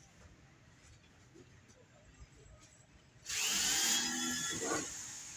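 A power tool starts suddenly about three seconds in, loud with a whining tone, and eases off near the end.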